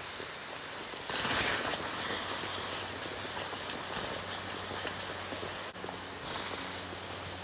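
Water boiling and hissing around fire-heated rocks dropped into a bark container, the rocks' heat bringing it to the boil. Stick tongs shift the rocks, with louder splashing about a second in and again near the end as a rock is lifted out dripping.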